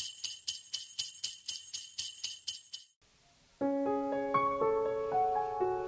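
Jingle bells shaken in a steady rhythm, about four shakes a second, stopping suddenly about three seconds in. After a short silence a piano begins a slow intro of held notes and chords.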